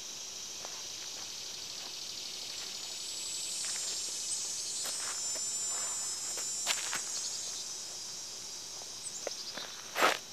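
Steady high-pitched insect chorus, swelling in the middle, with a few faint ticks. Near the end a single loud footstep lands on the dirt right next to the microphone.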